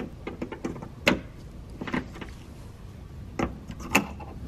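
Scattered sharp clicks and light knocks from door hardware being handled and fitted: the exterior door handle and its wiring connector going into a car door.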